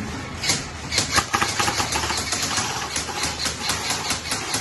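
Airsoft guns firing in rapid strings, a fast run of sharp cracks several a second that starts about half a second in.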